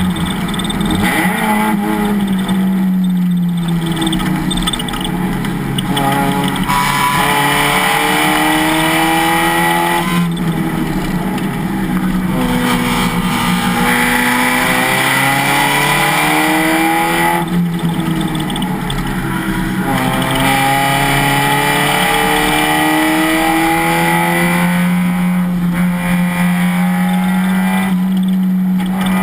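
Race car engine at full throttle on track, its note climbing through the revs and dropping sharply again and again as it shifts gear and brakes for corners.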